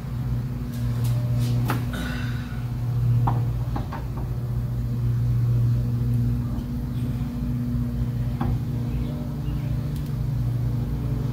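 A steady low hum, swelling and easing in level, with a few short clicks and light knocks over it, bunched in the first few seconds and once more near the end, as metal parts at the engine's front are handled.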